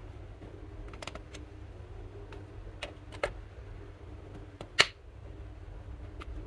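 Slime being worked by hand, giving a few sharp sticky clicks and pops, the loudest about five seconds in, over a steady low hum.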